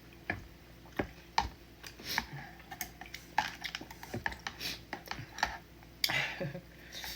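Close-miked eating of udon noodle soup: chewing and mouth smacking, heard as a run of sharp, irregular wet clicks, with a brief slurp about six seconds in.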